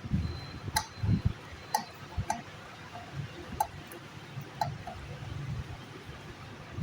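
Scattered sharp clicks, about six, and a few low knocks from the opened home theatre unit being handled.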